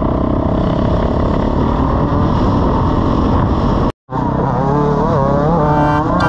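Trail bike engine running steadily. It cuts out abruptly for an instant about four seconds in, then revs up and down.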